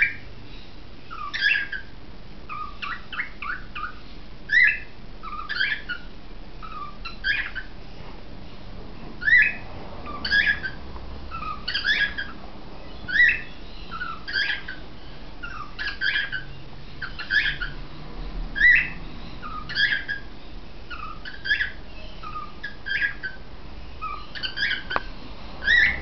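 Cockatiel repeating short contact calls, one or two a second, some in quick pairs.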